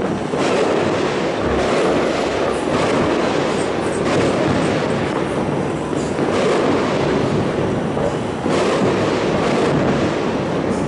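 New Year's fireworks barrage: many overlapping bangs and crackles run together into a continuous rumble, with louder bursts standing out every couple of seconds.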